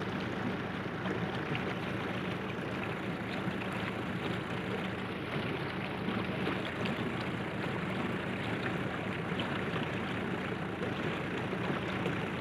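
Steady hum of a tractor engine running an irrigation pump through its PTO shaft, over an even hiss of water flowing in the channel.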